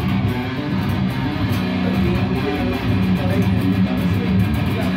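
Jackson electric guitar played with a heavy metal sound, low notes held and changed in a slow riff, the guitar tuned to B.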